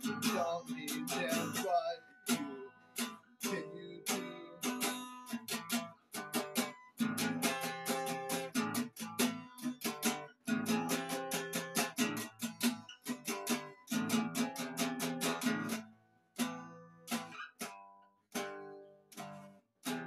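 Acoustic guitar strummed hard in a fast, even rhythm, with no singing. Over the last few seconds the strumming thins out to single strokes with short gaps between them.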